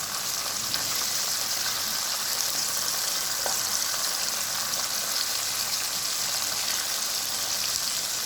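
Chicken pieces deep-frying in oil over a low flame: a steady sizzle and hiss, with a few faint ticks.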